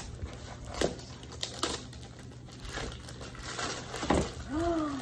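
Gift wrapping paper being torn and crumpled off a small box, with scattered crackles and rustles. A brief voice sound near the end.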